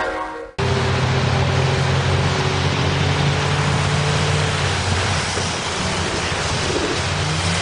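Cars driving on a rain-soaked road: tyres hissing through the spray with a steady engine hum beneath, its pitch stepping up near the end.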